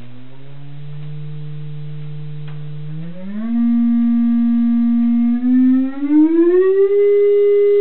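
Sine-wave test tone from a signal generator, played through a TV speaker, sweeping up in pitch with faint overtones. The low tone steps up slightly, jumps higher and gets louder a little after three seconds in, then glides smoothly upward and holds steady near the end.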